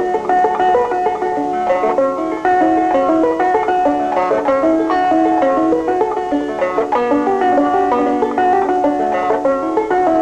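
Instrumental music led by a quickly picked banjo, a steady run of short plucked notes.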